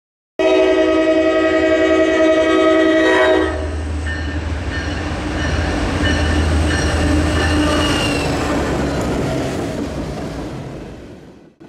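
Morristown & Erie diesel freight locomotive sounding a loud chord on its horn for about three seconds, then rumbling past close by and fading away.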